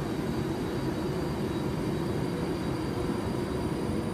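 Avanti West Coast passenger train running past along the platform: a steady rumble and rush of wheels on rail and air, with faint steady high whines over it.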